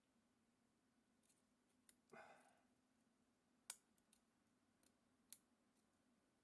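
Faint, sparse clicks of a lock pick working the pins of an all-brass American padlock, with a brief scrape a little over two seconds in.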